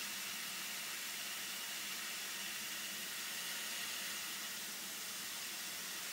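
Dutair DB 540 side channel blower running steadily at fixed speed: an even hiss of moving air with a faint low hum underneath.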